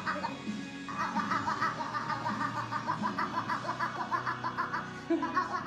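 A toddler's drawn-out voice, chopped into a rapid, even warble.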